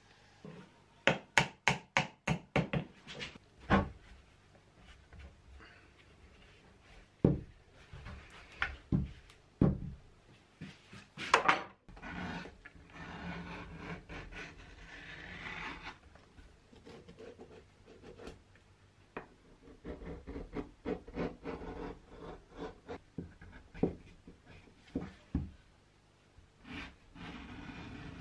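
Knife paring the edge of a leather insole on a shoe last: repeated short scraping cuts, with a quick run of sharp taps in the first few seconds.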